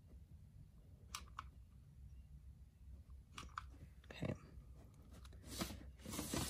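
Mini hot glue gun's trigger clicking faintly in two quick pairs while it feeds glue into the tumbler's base hole, over a low room hum; rustling handling noise near the end as the gun is pulled away.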